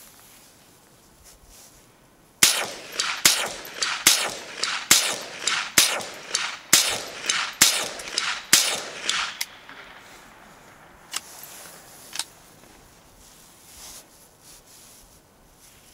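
Ruger 10/22 .22 semi-automatic rifle firing a rapid string of about fifteen shots, roughly two a second, each with a short echo. Two fainter cracks follow a couple of seconds later.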